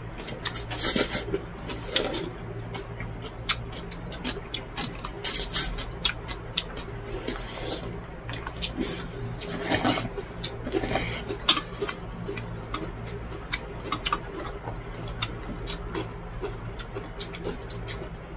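A person slurping and eating cold buckwheat noodles (naengmyeon) from a stainless steel bowl. Several noisy slurps are heard, with many small clicks of metal chopsticks against the bowl, over a steady low hum.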